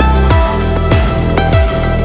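Electronic background music with a steady kick-drum beat, about two beats a second, over a sustained bass and synth notes.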